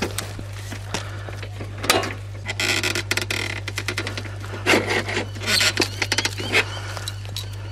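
Fencing wire being twisted tight with pliers through a hole in a corrugated steel garden bed: irregular clicks and spells of scraping as the wire and pliers rub on the metal edge.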